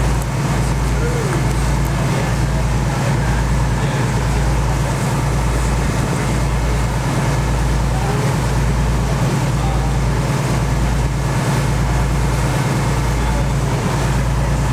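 A dive boat's engine running steadily underway, a loud low drone whose deepest rumble dips about once a second, with water and air noise over it.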